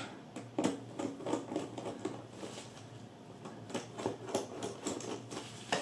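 A Phillips screwdriver backing out the screws of a suitcase carry-handle mount, making a run of light, irregular clicks and ticks.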